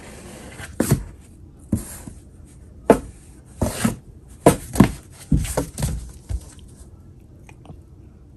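A cat clawing and scrabbling at the inside of a cardboard box: a run of about a dozen sharp cardboard scrapes and rasps with soft thumps, irregularly spaced, stopping about three-quarters of the way through.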